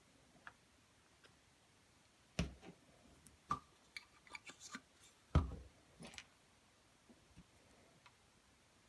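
Small airsoft magazine parts being handled: a few scattered light clicks and knocks, the two loudest about two and a half and five and a half seconds in.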